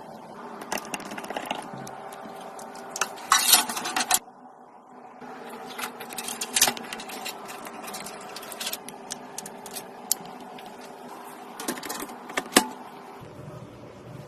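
Irregular clicks and clinks of small hard plastic and metal computer parts being handled and fitted together, over a steady hum.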